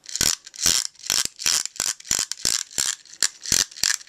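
Transformers Armada Cyclonus toy helicopter's trigger-driven propeller gimmick: a plastic ratcheting rattle, repeated about three times a second as the trigger is pumped over and over, keeping the rotor spinning.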